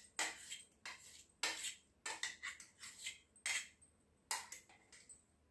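A metal spoon scraping and clinking against the inside of a steel mixer-grinder jar, knocking thick almond paste out into a steel bowl in a string of irregular short clinks.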